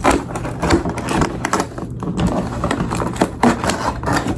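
Cardboard and plastic packaging of a laptop box being worked open by hand: irregular clicks, scrapes and knocks of rattling and tearing packaging.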